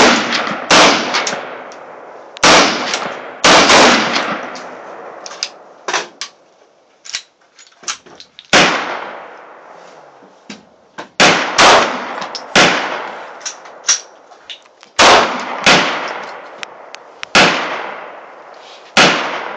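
Sig Sauer P229 pistol fired in slow single shots, about a dozen of them one to three seconds apart, each ringing out for about a second. Fainter sharp cracks fall between the loud shots.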